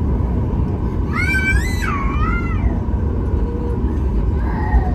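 Steady low rumble of a Boeing 737 MAX 8's passenger cabin, with a small child giving a high, swooping scream about a second in that lasts over a second, and a shorter, fainter cry near the end.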